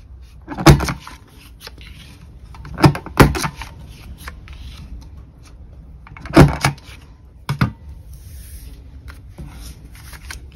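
Corner rounder punch snapping through paper corners: about five sharp clicks spread irregularly over the stretch, with paper being handled between them.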